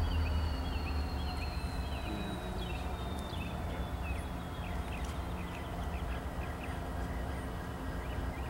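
CSX diesel locomotive rumbling steadily as it approaches slowly, with a slowly falling high whine and many short, high chirps over the low engine sound.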